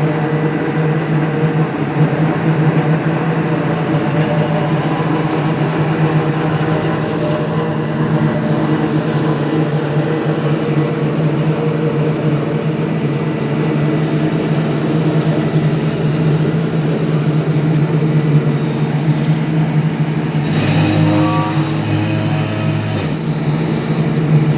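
A heavy engine running steadily at a constant pitch. About twenty seconds in, a second machine sound briefly joins it for two or three seconds.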